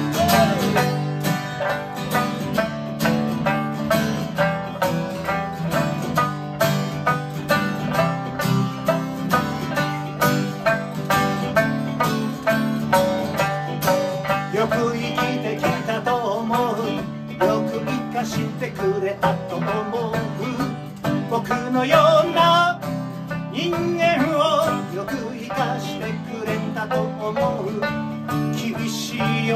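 Live acoustic folk band: two acoustic guitars strumming chords with a sanshin (Okinawan three-string snakeskin lute) plucking along. A man's voice comes in singing about halfway through.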